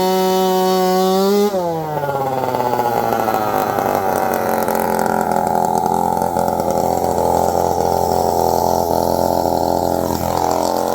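Gas chainsaw running at high revs, cutting a tire off an aluminum wheel rim. About a second and a half in, the engine note drops sharply and runs on steadily at a lower speed, as the chain bogs in the cut.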